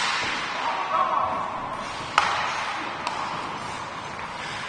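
Ice hockey play in an echoing rink: three sharp cracks of stick and puck, the loudest a little past two seconds in, over a hubbub of distant voices.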